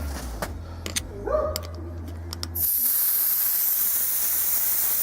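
Air hissing steadily out of a car tire's valve stem as the tire is deflated, starting suddenly about halfway through after a few light clicks.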